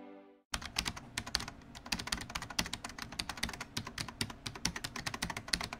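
Rapid keyboard typing, a dense run of key clicks that starts about half a second in and keeps going without a break.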